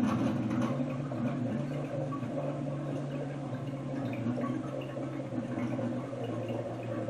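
CO2 gurgling up through hard cider inside a corny keg as gas is forced in through the dip tube to carbonate it: a steady bubbling with many small pops, over a steady low hum.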